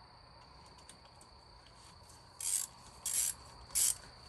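Hand ratchet clicking in three short bursts in the second half, the back-strokes of the ratchet while snugging the stator cover bolts hand-tight.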